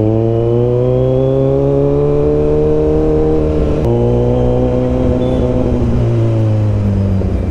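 Kawasaki Z900 inline-four engine and exhaust, loud, running at high revs under way, the note climbing slowly. About four seconds in it breaks off abruptly and picks up again at a similar steady pitch that eases slightly near the end.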